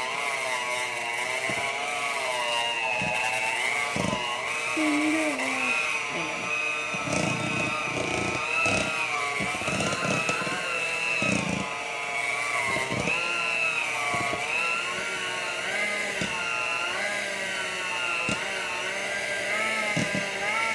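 Electric hand mixer running in thick cookie dough, its motor whine wavering up and down in pitch as the beaters meet the dough's resistance, with a few short knocks.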